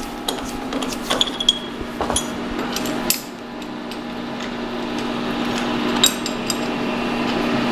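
Scattered metal clicks and taps of a steel Allen wrench being fitted into the socket-head cap screws of a milling-vise jaw, over the steady hum of a phase converter.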